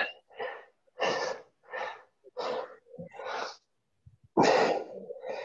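A series of short breathy huffs, about one every two-thirds of a second, with a longer, louder one near the end.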